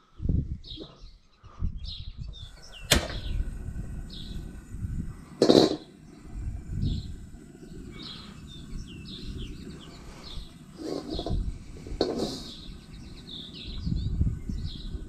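Gas wok burner running with a steady low roar under an empty wok, with birds chirping throughout. Two sharp knocks stand out, about three and five and a half seconds in.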